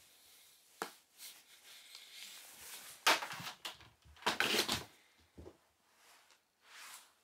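A cat jumping and scrabbling against a cardboard cat tower: scuffing and scraping of paws on cardboard and carpet, with a sharp knock just under a second in and the loudest scrapes about three and four and a half seconds in.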